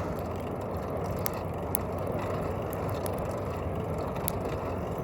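Wood-fired forge burning with a steady rushing noise and a few sharp crackles from the burning sticks.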